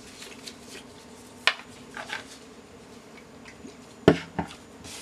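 A handful of light taps and clicks of a plastic bottle and its cap being handled and set down on a hard tabletop, the loudest knock about four seconds in.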